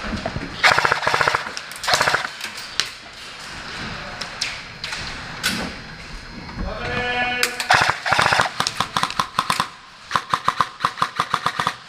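Airsoft guns firing in bursts and rapid strings of shots, the last string a fast, even run of about eight shots a second.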